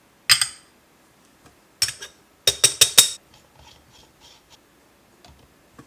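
Metal espresso tools and portafilter clinking and tapping while the coffee dose is prepared. One sharp ringing clink, another near two seconds in, then a quick run of about five clinks, followed by a few faint light taps.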